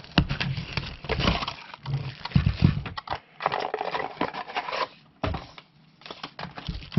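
A small cardboard box being torn open by hand and a plastic-bagged alarm clock slid out and set down: irregular tearing and rustling of cardboard and plastic, with a few light knocks.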